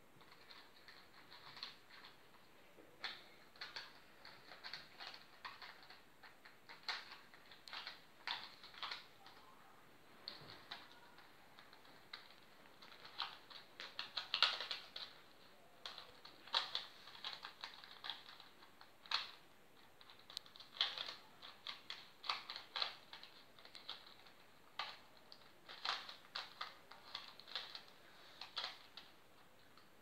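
Layers of a plastic Rubik's cube being turned by hand: quick runs of clicking and clacking, in clusters with short pauses between them.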